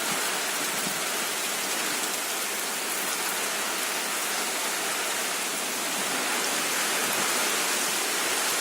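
Steady rushing hiss of a storm: strong wind through palm fronds, together with rain.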